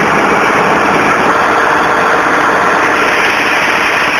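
Diesel engines of two tractors, a Swaraj 855 and a John Deere, running flat out under heavy load as they pull against each other in a tug-of-war; a loud, steady din.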